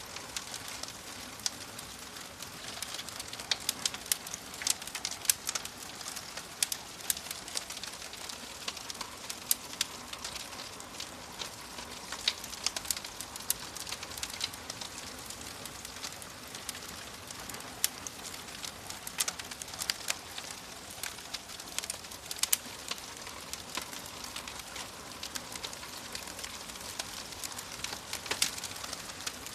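Fireplace fire crackling: a steady soft hiss with frequent sharp pops and snaps scattered irregularly throughout.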